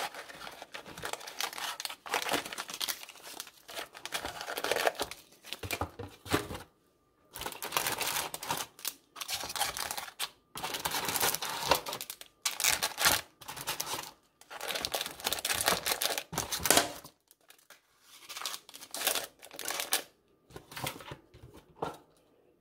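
Paper tea sachets and their packaging rustling and crinkling as they are handled and slotted into a wooden tea box. The rustling comes in irregular bursts with short pauses.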